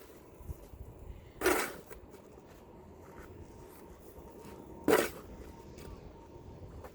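Two short scrapes of a snow shovel working snow, about three and a half seconds apart.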